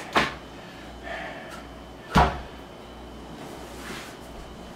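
Wooden bunk bed parts knocking: a light knock at the start and a louder sharp one about two seconds in, as the pieces are handled and set down.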